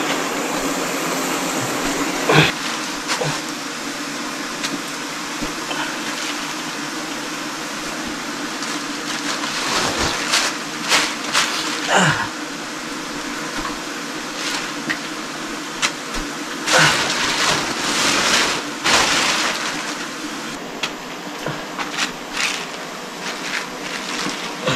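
Pork frying in oil, a steady sizzle with sharp pops and a few louder bursts now and then.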